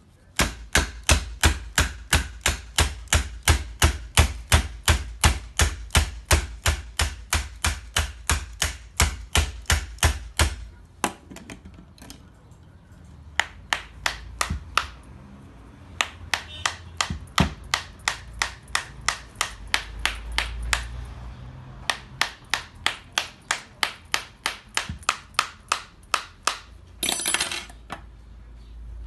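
A hard tool rapidly striking the nano glass screen protector on a smartphone, about four sharp knocks a second. The knocks pause briefly around the middle and come more unevenly for a while, then run steady again. A short rasping hiss comes near the end.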